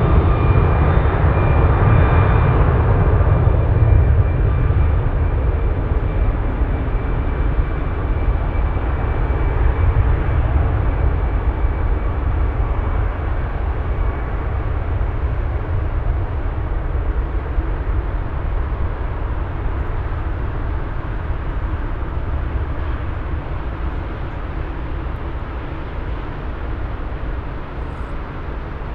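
Four-engine Airbus A340-600 jet airliner's engines at takeoff power: a deep rumble with a thin high whine, slowly fading as the aircraft moves away.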